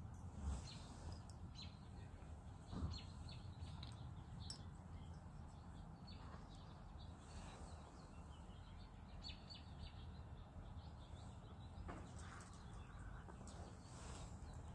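Quiet outdoor ambience with faint, scattered bird chirps over a low, steady background rumble.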